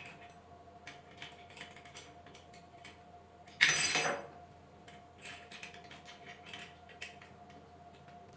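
Small metal parts of a mini metal lathe kit clicking and clinking as they are handled and fitted, with one louder scraping clatter of about half a second just under four seconds in.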